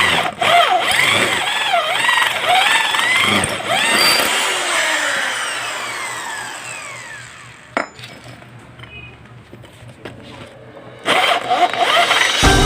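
Electric hand drill running with a freshly sharpened 1/4-inch bit, its motor whine wavering as the bit bites. About four seconds in, the motor spins down in a long falling whine. There is a sharp click near eight seconds, and the drill runs again near the end.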